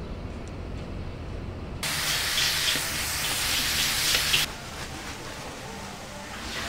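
Meat sizzling loudly in a hot wok as it is stir-fried, starting suddenly about two seconds in and dropping to a quieter steady sizzle about two and a half seconds later. Before it there is a low street hum.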